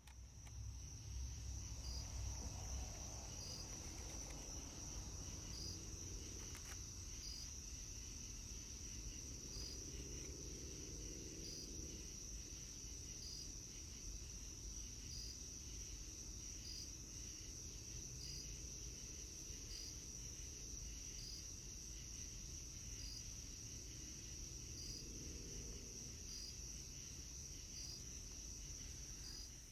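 Faint, steady high-pitched insect trill, typical of crickets, over a low rumble.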